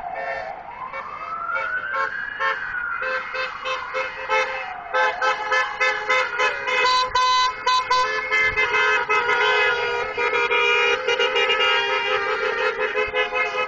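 A fire truck siren makes one slow wail, rising and then falling in pitch, and then vehicle horns honk over and over in short toots, a few of them held longer.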